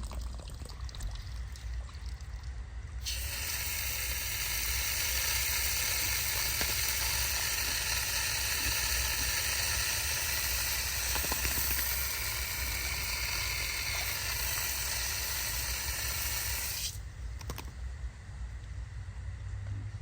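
Pressurized water spraying hard from a leaking water line as a loud, steady hiss. It starts suddenly about three seconds in and cuts off suddenly a few seconds before the end.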